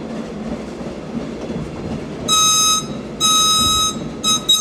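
Caboose back-up air whistle giving two long, shrill blasts and then a few short toots, over the steady rumble of the caboose's wheels rolling on the rails as it leads a shoving move.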